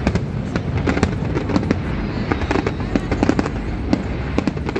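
Aerial fireworks exploding in quick, irregular succession: many sharp bangs over a continuous low rumble.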